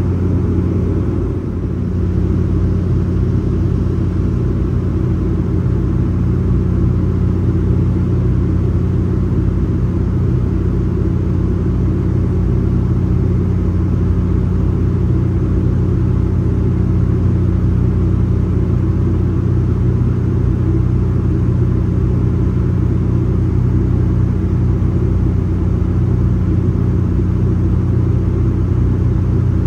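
Cabin noise of a Bombardier Dash 8 Q400 in flight, with its two Pratt & Whitney Canada PW150A turboprops and propellers running: a loud, steady low drone with a strong even hum.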